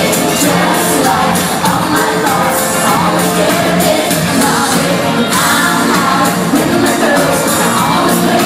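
Loud live concert music with a singer, amplified through a PA and recorded from within the audience on a phone.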